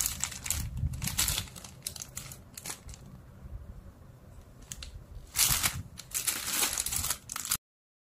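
Clear plastic packaging of dehumidifier bags crinkling as it is handled, in irregular bursts that are loudest near the start and again from about five seconds in. The sound cuts off suddenly near the end.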